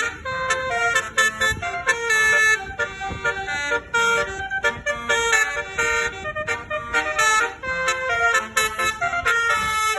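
Basuri musical bus horn playing a fast melody, a quick run of short, pitched horn notes that change every fraction of a second.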